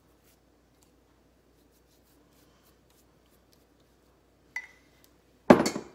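Faint light scratching and tapping of a pastry brush spreading egg wash on turnover dough. Near the end come a small knock and then a short, loud clatter of kitchen things being handled.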